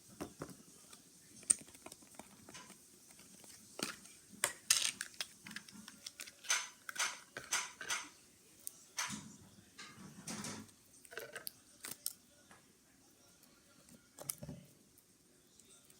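Slime being squished and poked by hand, giving a run of short sticky clicks and pops that come thickest in the middle.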